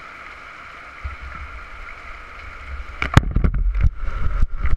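Heavy rain hissing steadily while strong wind gusts buffet the microphone; about three seconds in the buffeting grows loud, with several sharp knocks.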